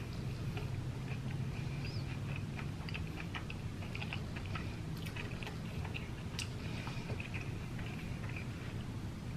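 Close-up chewing with many small wet clicks and crackles from the mouth, as a person eats.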